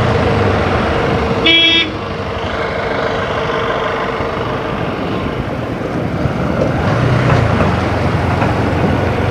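Steady road and engine noise from a motorcycle on the move, with a brief vehicle horn toot about a second and a half in.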